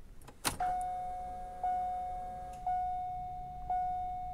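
A click as the ignition key is turned on, then the 2002 Corvette's key-on warning chime ringing about once a second, each ring fading before the next. A second, lower tone sounds under the chime for the first two seconds.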